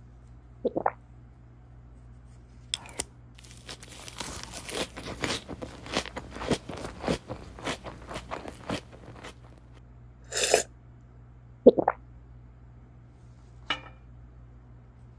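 Crunching, chewing-like eating sounds with paper cutouts crinkling as a pretend paper meal is eaten: a dense run of crackles through the middle and a brief hissing burst about ten seconds in, with a few sharp clicks between.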